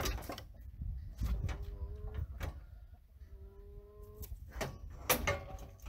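Metal sheep-handling chute clanking and knocking as a sheep is held and worked in it, with several sharp knocks spread through, the loudest about five seconds in.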